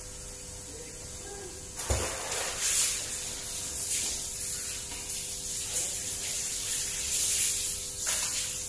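Water poured from a plastic scoop over a large tuna carcass on a cutting table, splashing and running off for several seconds. A single thump comes about two seconds in.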